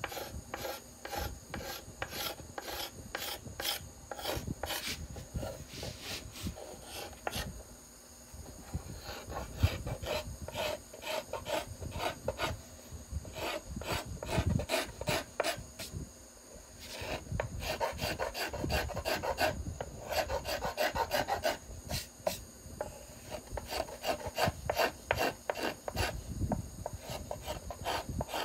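Steel card scraper shaving the arch of a violin plate in quick short strokes, several a second, with a couple of brief pauses, as the arch is given its final smoothing.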